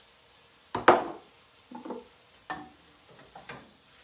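A few sharp knocks and scrapes of kitchen utensils against a skillet as ground lamb is stirred, the loudest about a second in.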